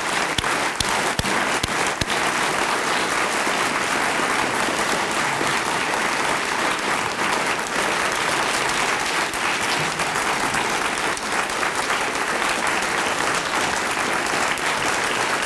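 Large audience applauding: steady, dense clapping from many hands.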